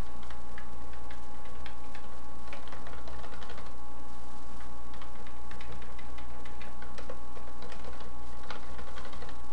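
Typing on a computer keyboard: irregular, quick key clicks as code is typed and edited. A steady low hum runs underneath.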